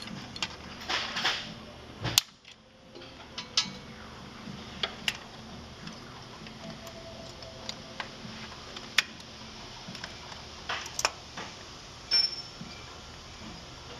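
Metal hand tools clicking and clinking on the steel bolts and nuts of a turbine engine's accessory gearbox mounting flange as it is fastened: irregular sharp clicks, the loudest about two seconds in.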